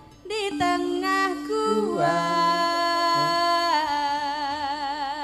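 Javanese singing over a steady sustained accompaniment tone, starting after a brief hush. The voice holds long notes, the last one with a wavering vibrato.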